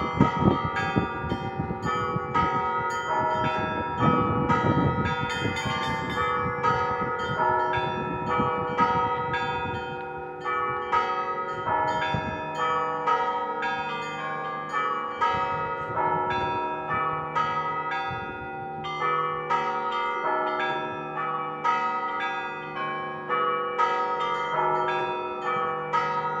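Russian Orthodox church bells (kolokolny zvon) rung in a rhythmic peal: quick repeated strikes on several smaller bells over the longer-sounding tone of a deeper bell.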